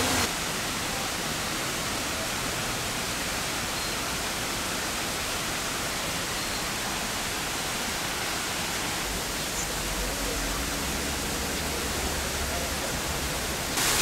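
Steady, even rush of water from a small waterfall. A low hum joins it for a few seconds past the middle.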